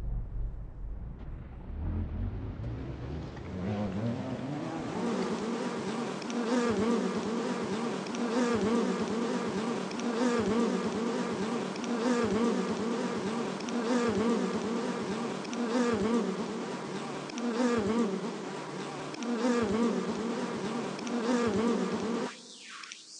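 Harsh buzzing drone with a steady low pitch over a bright hiss, starting suddenly with a low rumble and swelling and fading about every two seconds; it cuts off abruptly near the end, leaving a fainter sound.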